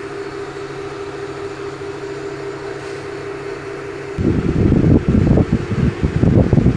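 A steady mechanical hum with a low tone, like a running fan. About four seconds in, it gives way suddenly to louder, uneven low rumbling of air buffeting the microphone.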